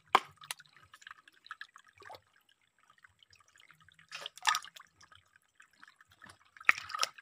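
Shallow rocky creek trickling, with a few short, sharp water splashes and clicks as hands rummage among the wet stones picking out freshwater snails.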